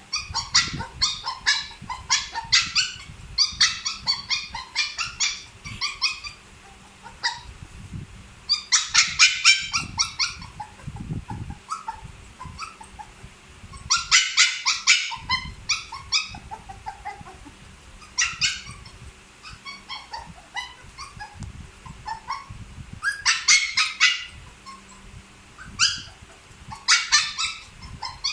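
Puppy crying: bouts of quick, high-pitched yips and whimpers, several calls in a row each time, with short lulls between the bouts.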